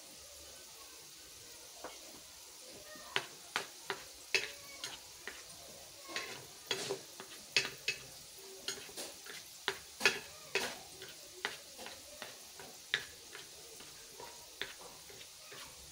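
A small spatula scraping and tapping against a ceramic plate as flour is mixed on it, in irregular sharp clicks and short scrapes that begin about three seconds in.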